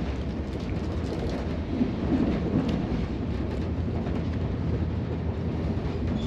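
Running noise of an Indian Railways sleeper train heard from inside the carriage: a steady low rumble with faint clicks here and there.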